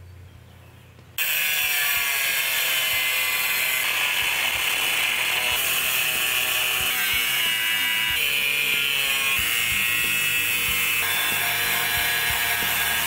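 Hitachi angle grinder with a cutoff wheel cutting through the steel of an old circular saw blade: a steady high whine with a hard scraping hiss. It starts suddenly about a second in and shifts slightly in pitch a few times as the cut goes on.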